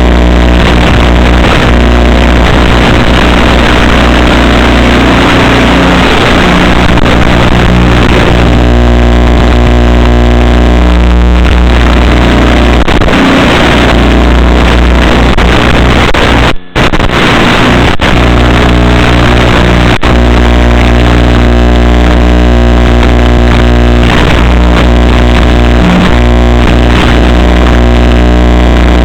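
Electric motor and propeller of an FPV flying wing droning steadily at high power, with loud rushing wind noise on the onboard microphone. The sound drops out briefly about 17 seconds in.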